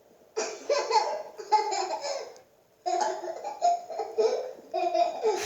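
A young child laughing hard in high-pitched, choppy bursts, in two long bouts with a short pause about two and a half seconds in.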